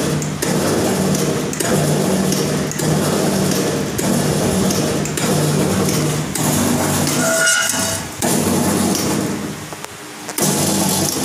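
Electric punching press for carry bags, driven by a 2 hp motor and flywheel, running with a steady hum while its ram strikes about once a second. A short squeal comes about two-thirds of the way through, and the sound drops briefly near the end before returning.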